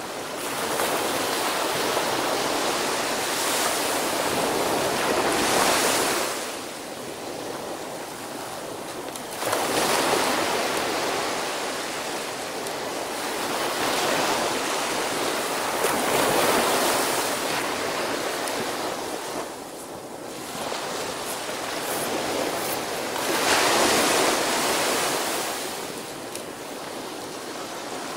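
Small ocean waves breaking and washing up a sandy beach. The surf swells and eases every several seconds.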